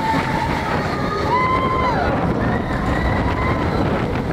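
Expedition Everest roller coaster train rumbling along its track through a dark tunnel, with riders letting out several long, wavering yells, the loudest about a second in.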